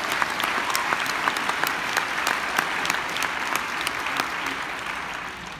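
Audience applause, many hands clapping, dying away near the end.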